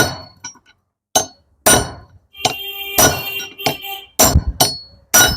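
Hammer blows on a metal pipe set over an angle grinder's gear-head spindle, about eight sharp metallic strikes at uneven intervals, some leaving a brief ringing tone. The blows are driving out the gear to get at a broken front bearing.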